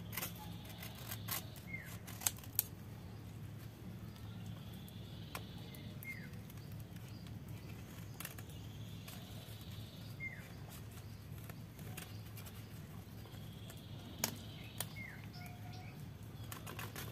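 Small blade cutting and scraping into the fibrous stem sheath of a green ivory coconut bonsai, heard as scattered sharp clicks and scrapes, a few standing out louder. This is the scoring (penyayatan) that is done to keep the leaves short.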